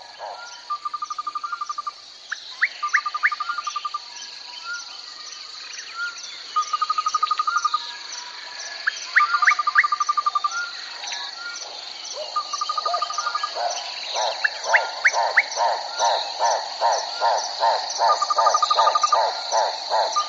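Wild chorus of insects and small animals: a steady high buzz, with short repeated trills and quick rising chirps. Runs of rapid pulsing calls build up in the second half.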